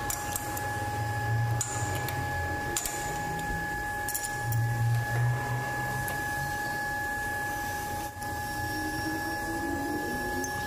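Metal lathe running with a steady whine and a low hum that swells twice, with scattered light clicks.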